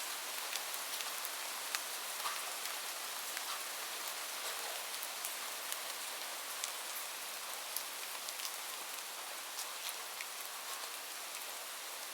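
Steady rain falling, a continuous hiss with scattered individual drops ticking sharply on a surface.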